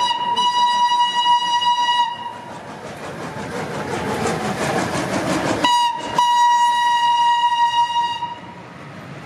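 Steam locomotive whistle giving two long blasts as the train pulls away. The first is already sounding and stops about two seconds in; the second starts just before the six-second mark with a brief stutter and lasts about two and a half seconds. Between the blasts comes the locomotive's exhaust chuffing and the rolling of the coaches.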